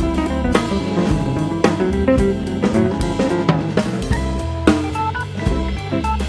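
Instrumental background music with a drum-kit beat under a low bass line and melodic instruments.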